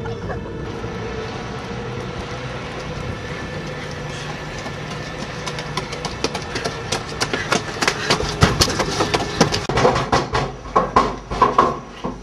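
A train running by: a steady rumble, then in the second half a run of loud, irregular clacks and knocks.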